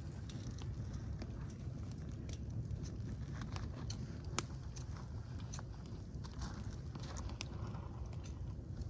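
A fire crackling, with irregular sharp pops over a steady low rumble; one louder pop about four and a half seconds in.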